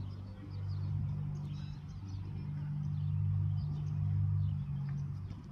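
A low, steady engine hum that gets a little louder partway through, with faint bird chirps above it.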